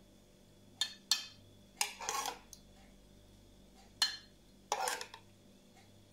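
Metal spoon clinking and scraping against a ceramic plate and a saucepan as thick tomato sauce is spooned out: about five short clinks, two of them drawn out into brief scrapes.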